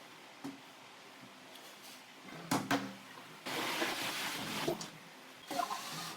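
Handling knocks and a scraping rustle: a light knock, two sharper knocks close together about two and a half seconds in, then about a second and a half of rasping rustle, with a few more knocks near the end.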